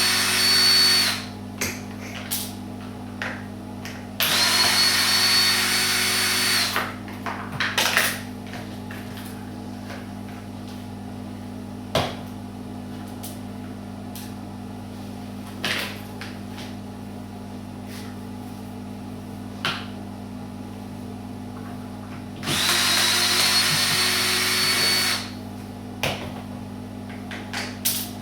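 Power drill run in three bursts of a couple of seconds each, its motor whine climbing to speed and holding steady. Scattered clicks and knocks fall between the bursts.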